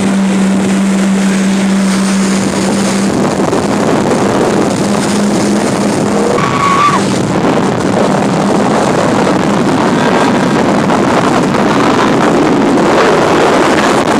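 Jet ski engine running, a steady hum over a loud rush of wind and water; the hum fades out about halfway through, leaving the rushing noise.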